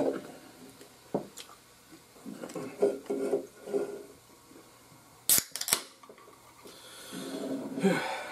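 Tabletop handling sounds: sharp clicks and knocks of a soda can and plates on a wooden table, loudest a quick cluster of clicks about five seconds in, with a few low mumbles between.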